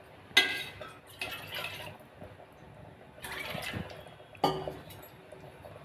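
Water poured into an aluminium pressure cooker holding mutton curry, in four short separate splashes.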